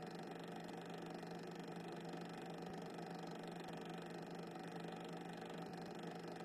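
Steady low hum with an even hiss and no distinct events: background noise from the transfer of silent 8mm cine film, with no sound of the locomotive itself.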